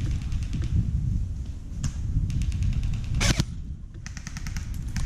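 Bursts of rapid airsoft gunfire, strings of quick even ticks, over a low rumble of wind and handling on the camera microphone. There is a single louder sharp swish about three seconds in.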